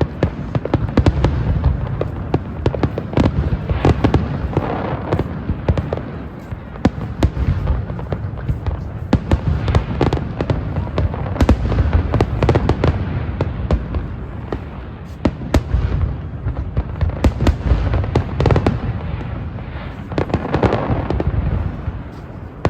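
Fireworks display: a dense, continuous barrage of bangs and crackles, many per second, over a rolling low rumble.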